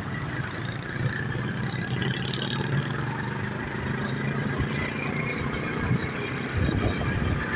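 Engines and road noise of a moving vehicle in city traffic: a steady engine hum with tyre noise, and a stronger low rumble about two-thirds of the way through.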